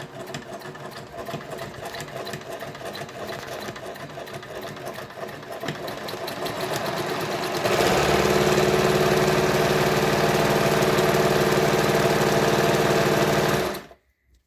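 Pfaff 204 sewing machine stitching a zigzag, running at a moderate pace at first and then faster and louder from about halfway through, before stopping abruptly near the end.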